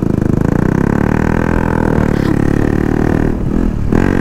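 KTM Duke 200's single-cylinder engine running through an aftermarket full-system exhaust while riding. The engine note climbs and then eases off, with a brief dip near the end.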